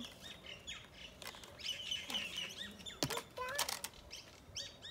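Plastic leaf rake scraping and knocking on concrete paving, a few clicks with a sharper knock about three seconds in, while small birds chirp faintly in the background.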